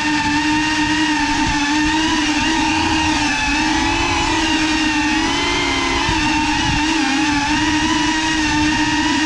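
FPV quadcopter drone's motors and propellers whining steadily, the pitch wavering slightly up and down as the throttle changes, over a low rush of prop wash.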